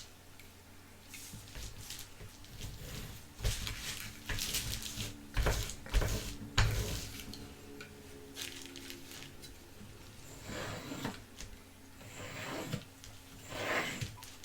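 Hands handling small hard objects close up: irregular clicks and knocks with rubbing and scraping, the loudest knocks clustered a few seconds in.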